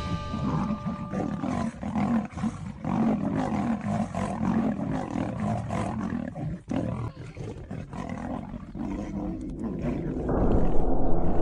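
Big cats snarling and roaring as they fight, in irregular rough bursts. About ten seconds in it gives way to a louder, muffled rumble.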